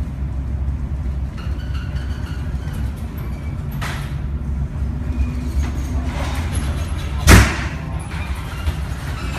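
Low steady rumble of a ship's bridge in a storm at sea, with a few rushing swishes of spray and wind, and one heavy thud about seven seconds in as the bow slams into a wave.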